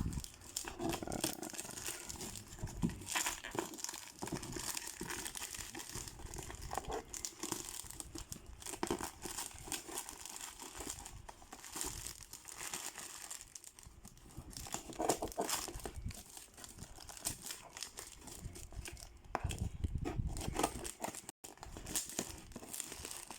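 Shipping packaging being torn open and crumpled by hand, irregular crinkling and tearing as the parcel is unwrapped.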